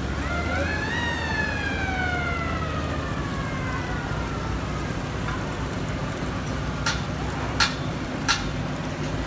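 A siren winding up for about a second, then sliding slowly down in pitch over the next few seconds, over a steady low hum of machinery. Near the end come three sharp knocks, a little under a second apart.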